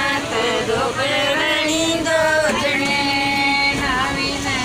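Several women singing a Hindu devotional bhajan together as kirtan, in long held, wavering notes.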